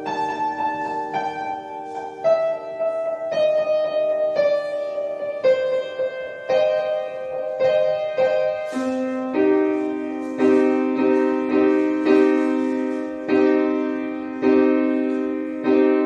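Instrumental keyboard music with a piano-like tone: sustained chords under a melody that steps downward, then a lower chord comes in about nine seconds in and is struck again roughly once a second.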